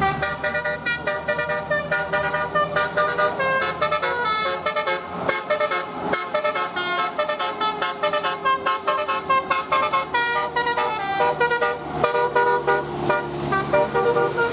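A bus's Basuri telolet horn, a multi-tone air horn, playing a fast melody of short stepped notes without a break.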